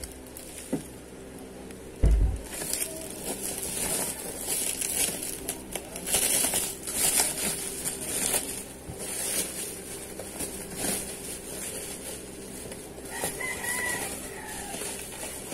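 Bubble wrap around a parcel crinkling and rustling as it is handled and cut open, with a thump about two seconds in. A rooster crows in the background near the end.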